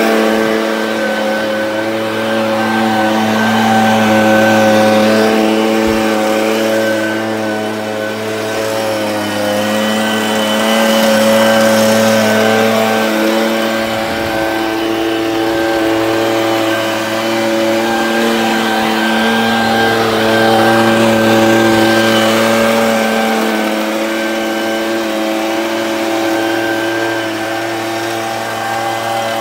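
Handheld leaf blower running steadily, a droning tone that swells and dips a little in loudness as it is swept over a paved driveway.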